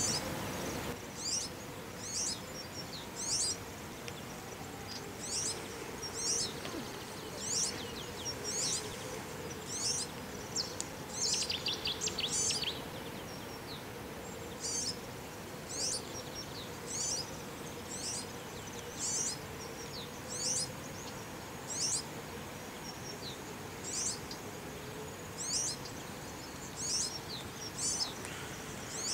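European serin calling: short high-pitched chirping phrases repeated roughly once a second, with a quick rattling trill about eleven seconds in. A faint steady hum runs underneath.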